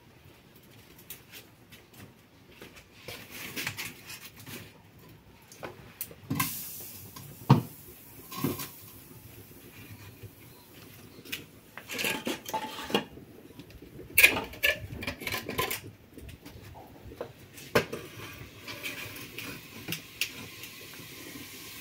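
Metal cooking pots and utensils clanking: irregular knocks and scrapes of pot, lid and spoon against each other, with the sharpest knocks about seven and fourteen seconds in.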